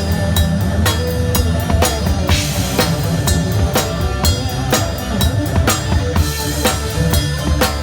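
Live drum kit playing a steady groove of kick and snare hits, with a crash cymbal twice, over sustained low bass notes.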